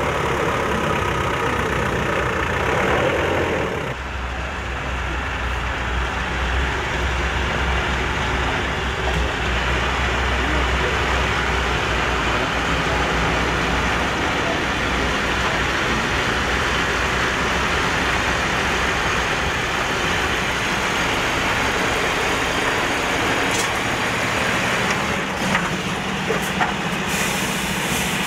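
Heavy military vehicle engines running steadily at close range. A deeper low drone takes over about four seconds in, and a few sharp clicks and a short hiss come near the end.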